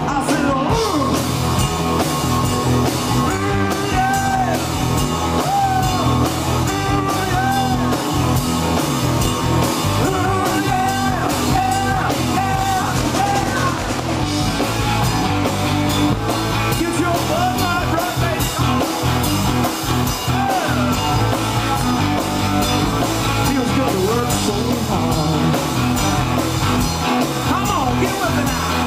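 Live rock band playing an up-tempo song on electric guitars, bass guitar and drum kit, with a voice singing for stretches, mostly in the first half.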